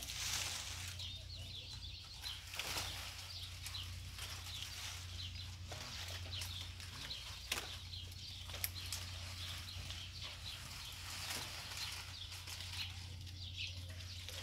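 Date-palm fronds and fruit stalks rustling and crackling as they are handled while rope is tied around them, with a few sharp clicks.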